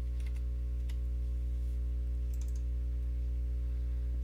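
Steady low electrical hum in the recording, with a few scattered computer keyboard and mouse clicks on top.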